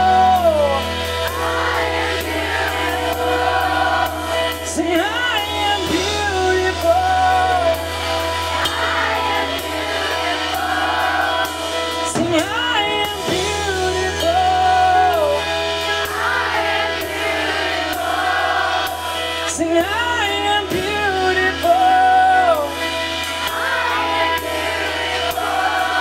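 Live rock band playing a slow, drumless passage over a steady held bass, the lead singer singing a short line that recurs about every seven seconds, and the audience singing each line back in call and response.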